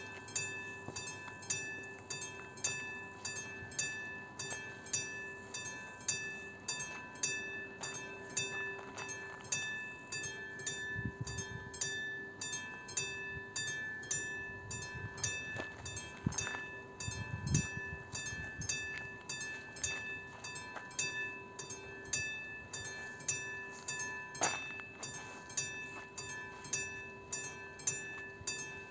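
Railway level-crossing warning bell ringing with evenly repeated electronic chime strokes while the crossing signal flashes red, warning that a train is approaching. There are a couple of brief low rumbles around the middle.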